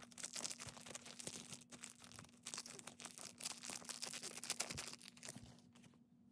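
Plastic blind-bag packaging crinkling and tearing as it is pulled open by hand, a dense crackle that dies down near the end.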